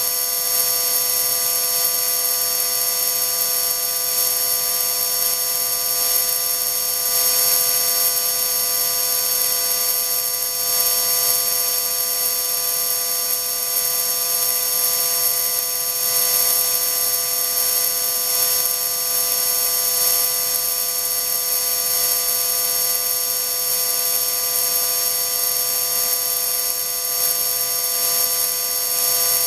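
High-speed electric motor on a test rig spinning steadily at about 30,000 rpm: a steady high whine made of several pitches over an airy hiss, holding the same speed throughout.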